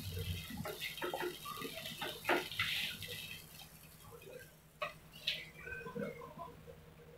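Wet ground masala paste frying in hot oil in a pot, sizzling, while a wooden spatula stirs and scrapes it in short strokes. The sizzle fades after about three seconds, leaving scattered small pops.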